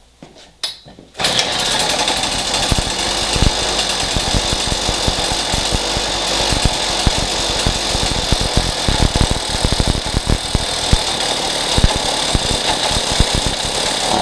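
Strike Master ice auger's two-stroke engine catching on a pull-start at half choke about a second in, then running unevenly with irregular firing, typical of its faulty carburetor, before dying suddenly near the end when it is given throttle.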